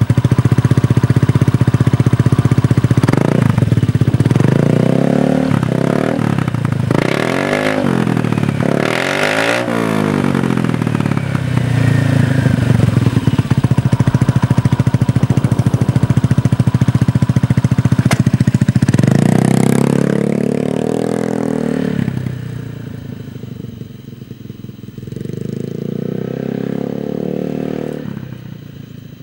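Honda PCX150 scooter's single-cylinder four-stroke engine through a LeoVince GP-Corsa full exhaust, catching and idling, then revved in a run of quick blips from about three to ten seconds in. About nineteen seconds in it revs up again and pulls away, going quieter, with a smaller rise further off near the end.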